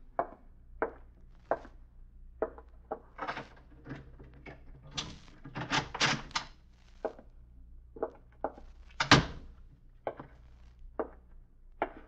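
Radio-drama sound effects of someone arriving at a door: footsteps at a walking pace, roughly one every 0.6 s, then a stretch of rattling and clattering at the door. A loud thunk about nine seconds in is the door shutting, followed by a few more footsteps.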